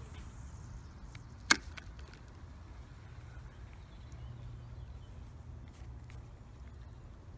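A single sharp click about one and a half seconds in, with a few much fainter clicks later, over a low steady rumble.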